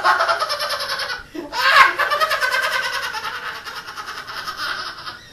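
A high-pitched, rapid pulsing laugh voiced as a crazy alien creature, in two bouts: a short one, then after a brief break a second, louder one that slowly trails off.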